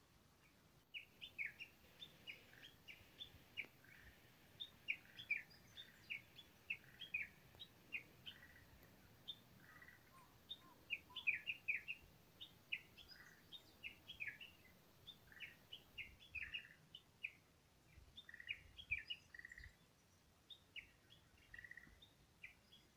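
Faint chirping of small birds: many short, sharp, high calls in quick succession, some overlapping, from about a second in until shortly before the end.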